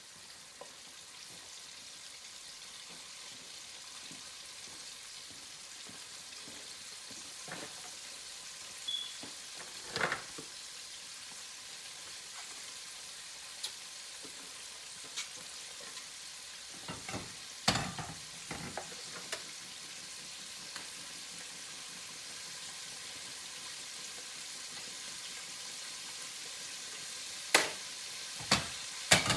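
Chicken wings frying in hot oil, a steady sizzle throughout, with a few sharp knocks of utensils against the pan or plate, several of them close together near the end.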